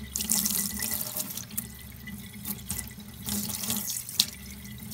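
Kitchen tap running into a stainless steel sink, the stream splashing unevenly over hands as they rinse a piece of hilsa fish gut, with one sharp click a little past four seconds in.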